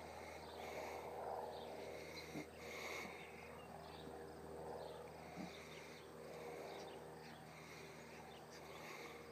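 Faint outdoor ambience with insects chirping, soft swelling noise and a couple of light clicks.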